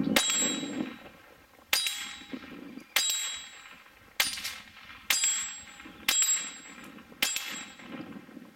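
Seven shots from a .22 Browning Buck Mark pistol, roughly one a second. Each crack is followed by a short metallic ring from the hanging steel groundhog target as the bullet hits it.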